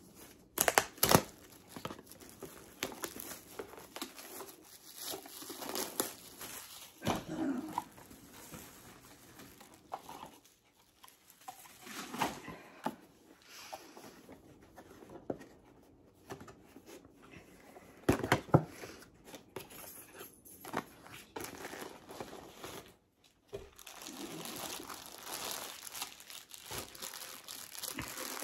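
Packaging being torn open and crinkled by hand: irregular crackling and ripping with sharp snaps, broken by short pauses.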